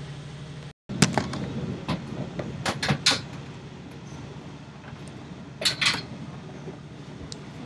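Knocks and clatters of a sleeper-train berth being handled as its bedding is stripped, over the steady running hum of the moving train carriage. The loudest knocks come about a second in, around three seconds in, and near six seconds in.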